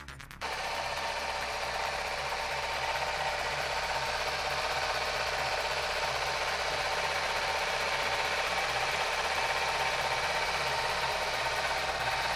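Kawasaki Ninja 250's parallel-twin engine idling steadily. It comes in as music cuts off about half a second in.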